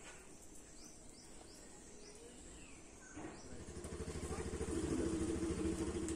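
A motor vehicle's engine passes by, swelling from about three seconds in and fading near the end, with a few short bird chirps before it.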